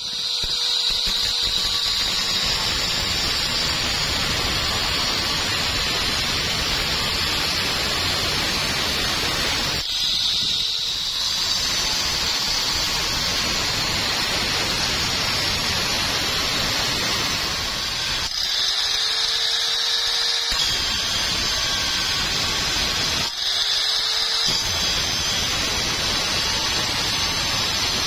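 Angle grinder with a thin cut-off disc cutting through square steel tube: a steady, loud grinding with a high whine. A few times the disc comes out of the cut and the motor's pitch rises as it spins up freely, then the cutting resumes.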